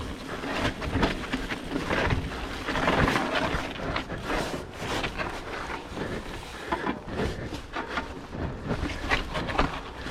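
Full-suspension mountain bike riding fast down a rough, wet trail: tyres rolling and crunching over gravel and rocks, with frequent knocks and rattles from the bike over bumps. Wind buffets the camera microphone.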